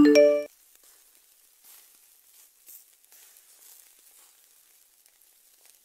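A short electronic alert chime at the very start, about half a second long, signalling a breaking-news alert. After it, faint sizzling of food frying in a pan on the stove.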